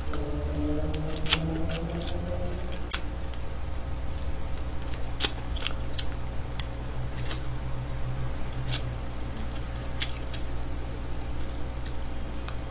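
Close-up eating sounds from a person biting and chewing smoked chicken off the bone: irregular sharp mouth clicks and smacks, over a steady low hum.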